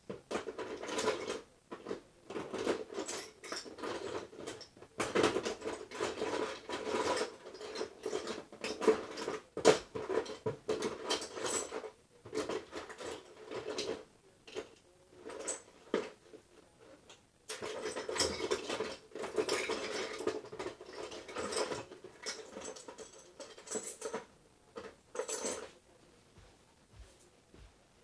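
Irregular clattering and rustling of small objects being handled, with quick clicks and knocks coming in clusters and a quieter stretch in the middle and near the end.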